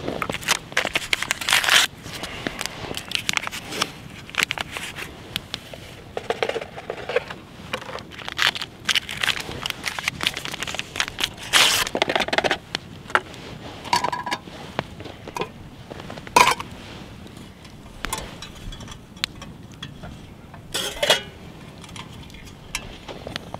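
Crinkling and rustling of hot cocoa packets being opened and emptied into a cup, mixed with scrapes and clinks of a metal cookpot, in a run of irregular sharp crackles.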